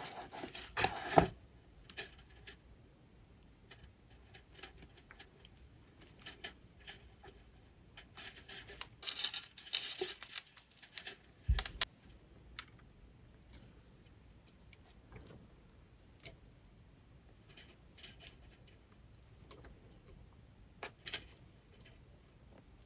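Jewelry pliers, flush cutters and copper wire handled on a work surface: scattered small metallic clicks and short scraping rustles. A sharper click comes about a second in, and a dull knock comes near the middle.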